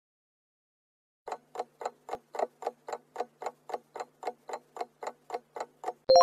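Clock-ticking countdown sound effect, evenly spaced ticks at about four a second starting about a second in, timing the answer. A bright chime rings out right at the end as time runs out.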